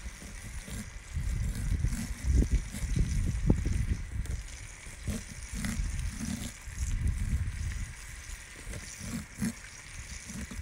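A knife cutting kernels off an ear of fresh sweet corn onto a wooden cutting board in repeated downward strokes, over a low, uneven rumble.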